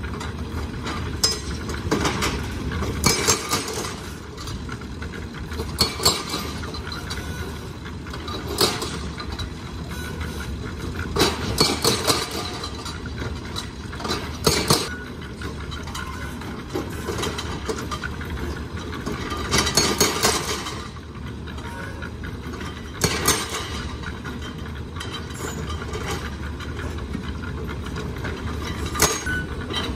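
A machine engine runs with a steady drone while steel shovels scrape into gravel and metal buckets clank, in irregular bursts every few seconds.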